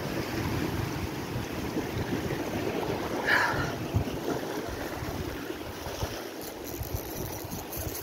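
Sea swell surging and washing over shoreline rocks, with wind buffeting the microphone. There is a brief higher sound about three seconds in, and faint rapid ticking near the end.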